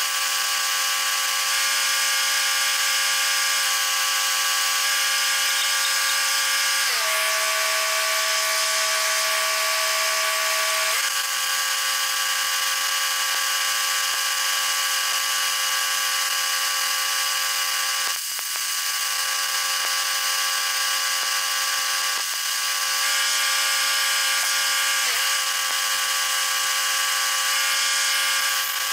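Stick (shielded metal arc) welding: the rod electrode's arc gives a steady crackling hiss as a repair plate is welded onto a skidder's grapple clamp. Under it runs a steady pitched hum whose pitch drops about seven seconds in and rises back about four seconds later.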